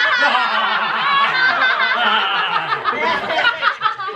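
A group of people laughing together loudly, several voices overlapping.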